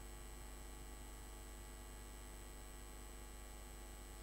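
Steady low electrical mains hum, with a faint thin high whine over it and no change throughout.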